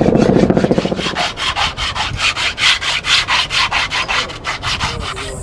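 Hand rubbing back and forth on the surface of a large carved wooden sculpture, about four or five even strokes a second. About a second in, the strokes turn higher and hissier, like sanding.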